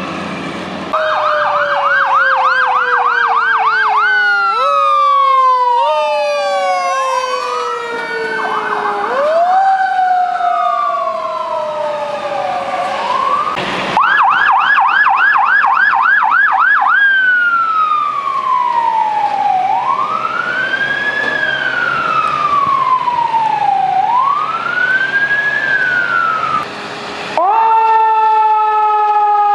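Emergency vehicle sirens: an electronic siren switching between a fast yelp and a slow rising-and-falling wail, with a second siren tone sliding slowly down in pitch. The sound changes abruptly twice, about halfway through and near the end.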